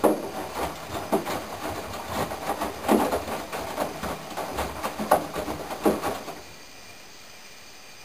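Candy GO4 1274 LH GrandO Plus front-loading washing machine in its wash phase: the drum turns, tumbling wet laundry with sloshing water and irregular soft knocks. The drum stops a little past six seconds in.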